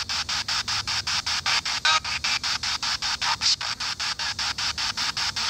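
Spirit box sweeping through radio stations: a hiss of static chopped into rapid even pulses, about eight a second, with brief snatches of tone.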